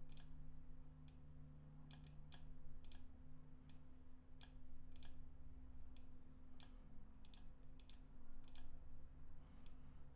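Computer mouse clicking at irregular intervals, often in quick pairs, while patterns are dragged into place. A faint steady low hum runs underneath.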